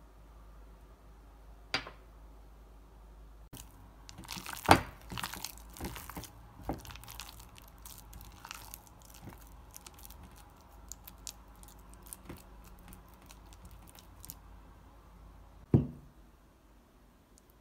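Minced shrimp paste with egg white and starch being mixed by hand in a glass bowl: irregular sticky squelching and slapping, busiest a few seconds in. A single sharp knock comes near the end.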